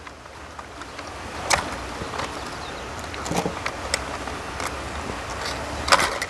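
Scattered clicks and knocks of the plastic parts of a Poolvergnuegen pool cleaner being handled while its fenders and wheels are taken off, the sharpest cluster near the end, over a steady low hum.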